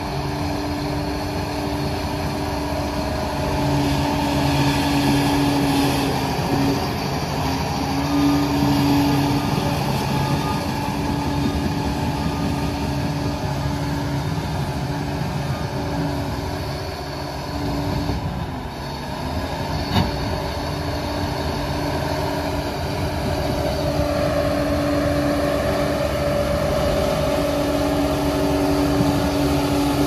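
Liebherr 746 crawler dozer's diesel engine running steadily while the machine works soil. Its pitch shifts about two-thirds of the way through, as it drives forward pushing a load of dirt with the blade. A single sharp knock comes about two-thirds through.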